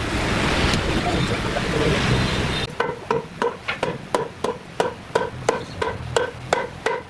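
A loud steady rushing noise cuts off abruptly about two and a half seconds in. It is followed by quick, even hammer blows, about three a second, each with a short ringing tone.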